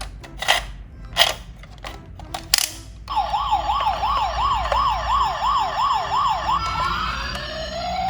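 A few sharp clacks, then a toy emergency vehicle's electronic siren starts about three seconds in: a fast yelp wavering up and down about three times a second, which changes near the end into a slow rising wail.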